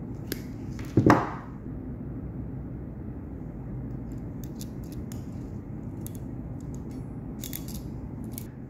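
Hand wire stripper snapping through a wire's insulation with one loud snap about a second in. Later, a ratcheting Deutsch pin crimping tool clicks several times as it crimps a male pin onto the wire.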